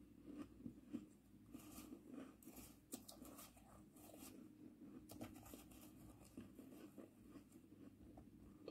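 Faint scraping and crunching of a metal spoon digging through crushed ice in a plastic bowl, scooping up a spoonful. The crunchiest scraping comes in two spells, about two seconds in and again around five seconds.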